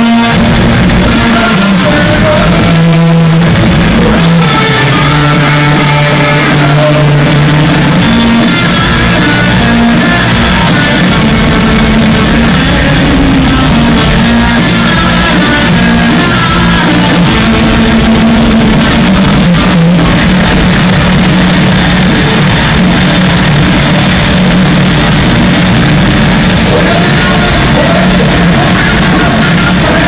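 Live heavy rock played loud through a concert PA, with distorted guitars, drums and singing, captured on a phone microphone that is overloaded and distorting.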